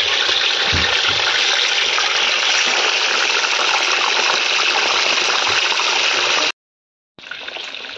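Chicken pieces frying in hot oil in a black wok: a loud, steady sizzle. It cuts off suddenly near the end and comes back quieter.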